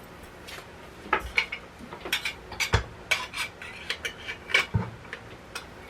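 Presto electric kettle pot and its parts being handled and set up: a run of metallic clanks and clinks, some ringing briefly.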